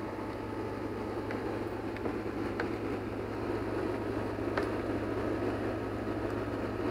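A steady rushing hum runs throughout, with a few light clicks from wiring and connectors being handled by hand.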